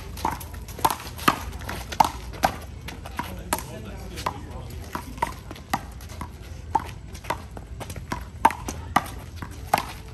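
A rally in handball: a small rubber ball is slapped by players' hands and smacks off the wall and court, giving sharp, irregular knocks about twice a second.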